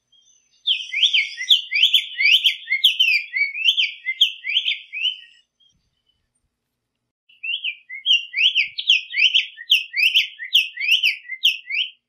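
Black-faced tanager (sanhaço-de-coleira) singing: two long phrases of quick sweeping notes, each about five seconds, with a gap of about two seconds between them.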